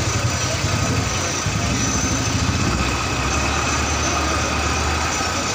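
Diesel bus engine running steadily as the bus pulls away from the roadside.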